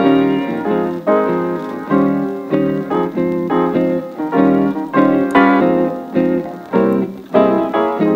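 Background music: a melody of notes that each start sharply and fade, about two a second.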